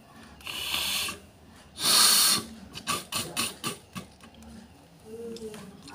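A person forcefully blowing and snorting air out through the nose twice, the second blast the louder, followed by a quick run of short sputtering clicks, like spitting and throat clearing, and a brief low hum: the clearing of mucus during a gurah nasal-cleansing treatment.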